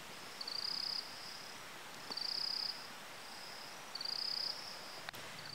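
Insects calling: three short, high, pulsed buzzes about two seconds apart over a faint steady high trill.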